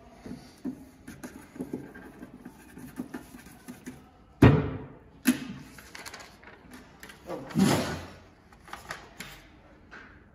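A pen scratching on paper with faint small strokes, then a sudden loud thump about four and a half seconds in and a second, smaller knock just after; near the end, sheets of paper are rustled as they are handed over and unfolded.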